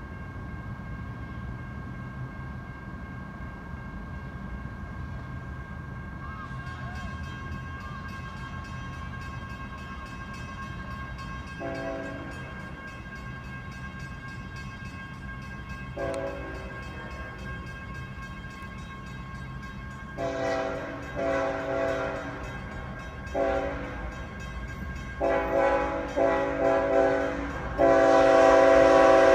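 Approaching freight locomotive's hybrid K5HLL-R2 multi-chime air horn: two short taps about 12 and 16 seconds in, then a run of longer blasts from about 20 seconds in that grow louder as the train nears, the last and longest one the loudest. A low rumble of the train's diesel engines runs underneath.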